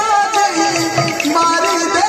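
Odia kirtan music: barrel drums (mridanga/khol) are beaten in a steady rhythm under a sustained melody line of held notes.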